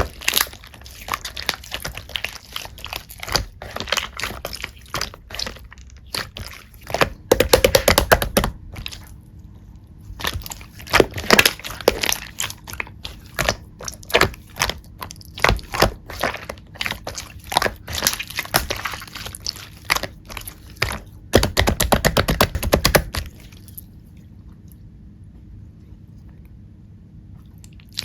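Black slime being squished and pressed by hand, giving a stream of crackling, popping clicks. There are two quick dense runs, one about seven seconds in and one about twenty-one seconds in. The clicking stops about twenty-three seconds in, leaving only a faint hum.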